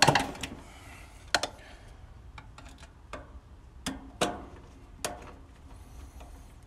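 Screwdriver and wires clicking and knocking against the metal of an air-conditioning condenser's electrical compartment as the terminal connections are worked. About ten sharp, irregular clicks, the loudest cluster right at the start and the rest spaced roughly a second apart.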